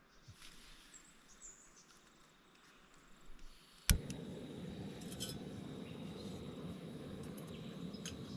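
A small gas canister camping stove being lit: one sharp click about halfway through, then the burner hissing steadily as it heats water for coffee.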